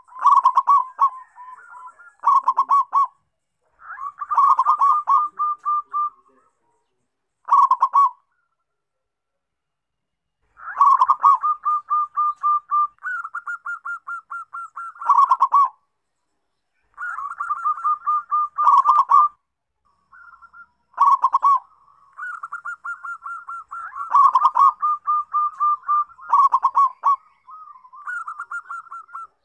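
Zebra dove song: repeated phrases of rapid, staccato cooing notes, each lasting one to a few seconds, with short pauses between them.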